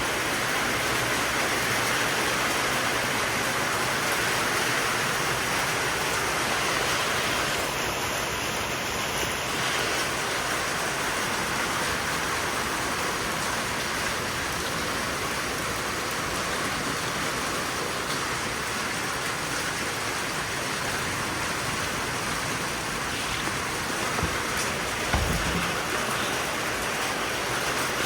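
Steady rain from a severe thunderstorm, an even hiss with no let-up. A brief low thump sounds about three-quarters of the way through.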